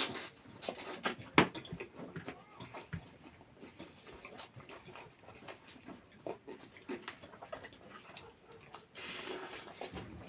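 Close-miked eating of chicken leg curry: wet chewing, irregular mouth clicks and lip smacks.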